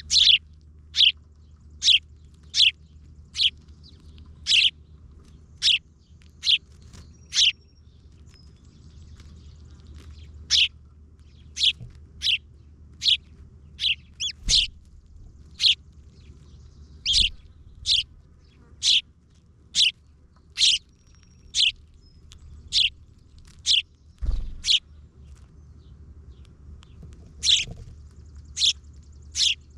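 A bird chirping over and over in short, sharp notes, roughly one or two a second with a few short pauses. A steady low hum runs underneath, and a couple of dull low thumps come about halfway through and again later.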